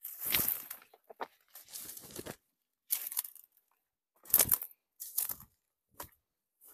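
Wiry brush and tufts of grass-like stems being torn up and gathered by hand: a series of short rustling, tearing crackles, about six in all with gaps of silence between them, the loudest about two-thirds of the way through.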